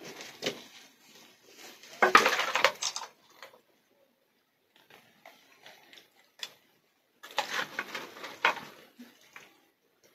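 A serving spoon clattering and scraping in a metal pot of thick duck curry and the curry dropping onto a banana leaf, in a few short bursts, the loudest about two seconds in and another near the end.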